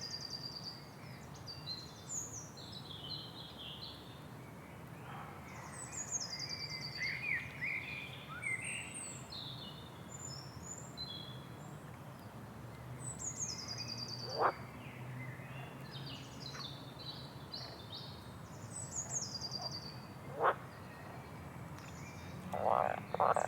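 Rainforest ambience of several birds calling at once: a high descending trilled call repeats every six or seven seconds among scattered chirps, with two short sharp calls and a brief pulsed call near the end, over a low steady hum.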